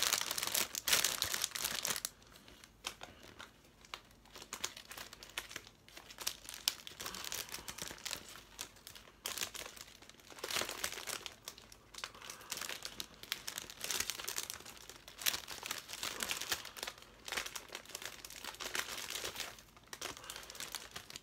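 Cellophane gift wrap crinkling and rustling in irregular bursts as it is gathered and a ribbon is tied around it, loudest in the first couple of seconds.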